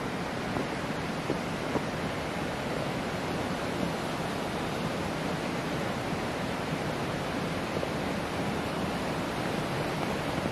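Steady, even rushing noise that holds at one level throughout, with no voices.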